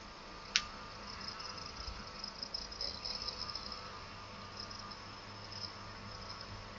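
Faint, high insect chirring in the background, with one sharp click about half a second in.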